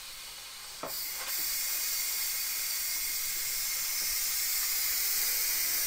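A 3-quart Instant Pot's steam release valve venting the remaining pressure after a ten-minute natural release, a steady high hiss of escaping steam. It starts faint and turns much louder after a click about a second in.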